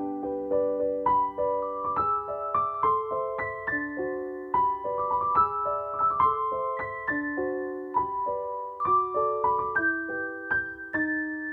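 Piano music: a steady run of single notes over ringing chords, settling onto a held chord near the end.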